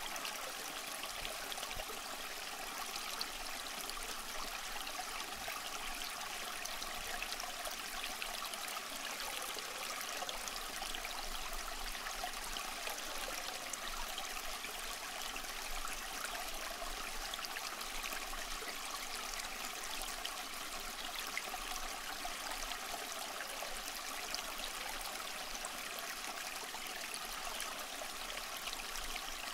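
Steady trickling, running water, an even rushing with no breaks.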